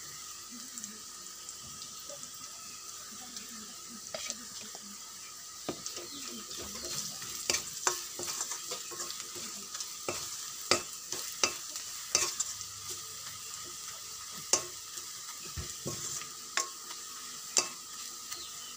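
Sliced onions, chillies and turmeric sizzling in hot oil in a metal wok, stirred with a metal spoon that scrapes and clinks against the pan. The clinks start about four seconds in and grow louder and more frequent.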